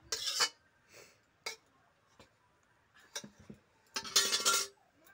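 Metal spatula scraping the last of the fish curry out of a metal wok in a few short strokes, the longest and loudest near the end, with a metallic ring.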